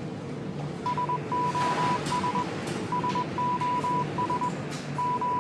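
Morse code SOS distress signal sent as a steady beeping tone, three short, three long, three short, repeating, starting about a second in over a low steady rumble.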